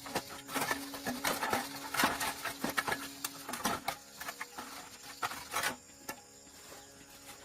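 A rapid, irregular run of clicks and knocks, like hand work on metal parts, that stops about six seconds in, over a steady low hum.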